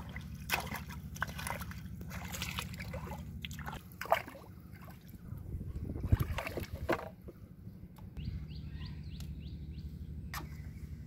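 Shallow pond water splashing and sloshing as hands and a small boat work through water weeds, with scattered knocks, under a steady low hum.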